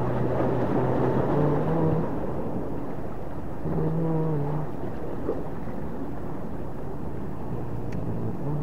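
Low, simple background melody of held notes stepping up and down between a few pitches, over a steady hiss of wind and sea.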